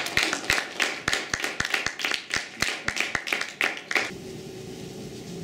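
A small group of people applauding, each hand clap distinct, dying away about four seconds in.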